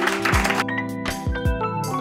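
Upbeat music with a deep kick drum beat and held notes.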